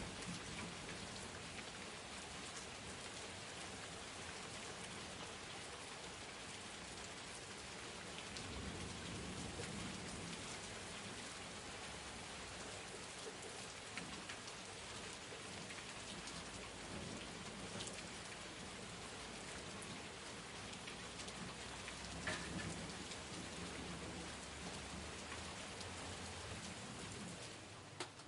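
Steady rain falling and pattering on a surface, with a few low rumbles of distant thunder swelling under it.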